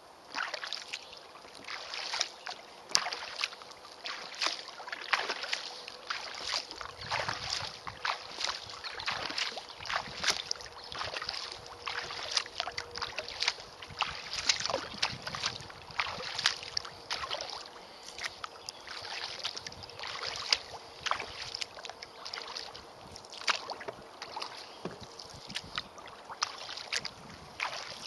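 Kayak paddling: the paddle blades splash and drip with each stroke, and water trickles against the hull in a continuous patter of small irregular splashes, with a louder splash every second or two.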